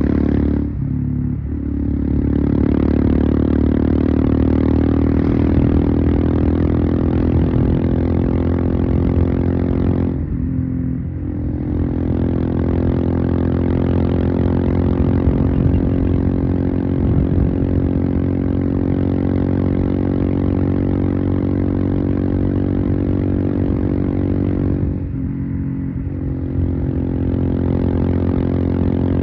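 Royal Enfield Himalayan single-cylinder engine running through a Devil Pro Evolution aftermarket exhaust while riding, a steady loud exhaust note. The note briefly drops off and picks up again about ten seconds in and again around twenty-five seconds in.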